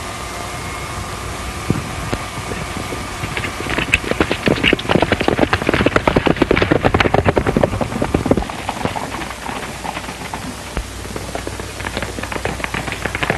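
A dense, rapid clatter of many sharp knocks. It swells from about three seconds in, eases off, then picks up again near the end, all over the steady hiss of an old film soundtrack.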